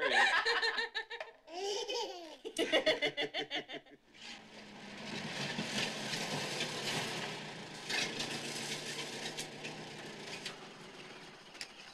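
A family laughing together in quick bursts. About four seconds in this gives way to the steady running of an old open car's engine as the car rolls up and stops, growing gradually quieter toward the end.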